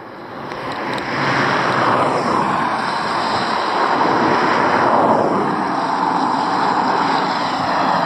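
Highway traffic passing close by: a rushing of tyres and engines that swells over the first couple of seconds and stays loud.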